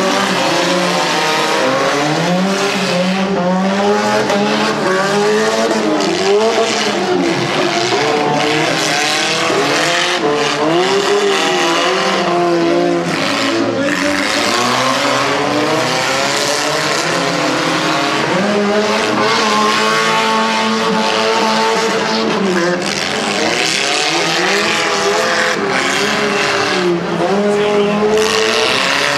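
Several demolition derby cars' engines revving and running hard, their pitches rising and falling over one another as they accelerate and slow.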